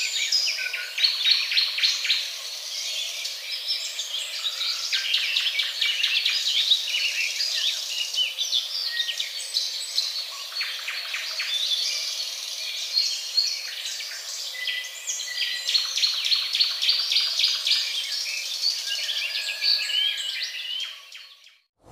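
Many birds chirping and twittering at once, a dense mix of quick calls, trills and short whistles; it fades out near the end.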